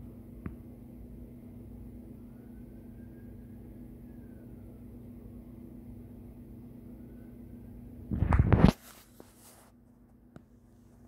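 Steady low mechanical hum. About eight seconds in comes a loud rustling knock from the recording phone being handled, followed by a second of scraping noise.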